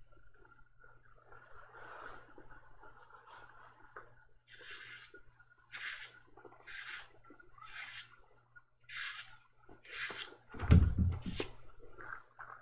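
Rustling, in short swishes about once a second, then a heavy low thump a little before the end.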